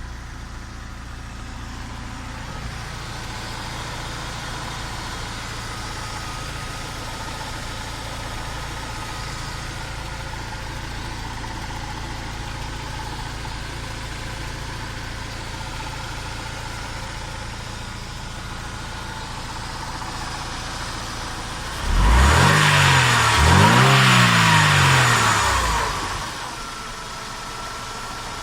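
Mercedes W202 C180's four-cylinder petrol engine idling steadily, then revved up and down twice about three-quarters of the way in before settling back to idle. This is a check of the freshly rebuilt belt tensioner damper: the tensioner pulley no longer shakes when the engine is revved.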